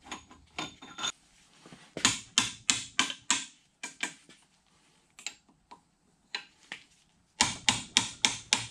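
Plastic-faced mallet tapping the handle of a wrench on a Bridgeport ram adapter's locking bolt to break it loose: a few ringing metal clinks as the wrench goes on, then two quick runs of five or six sharp taps, the second near the end.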